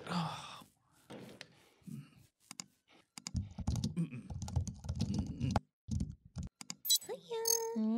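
Computer keyboard typing: scattered single key clicks, then a quick run of keystrokes about halfway through and a few more after it. Near the end comes a short voice-like sound with gliding pitch.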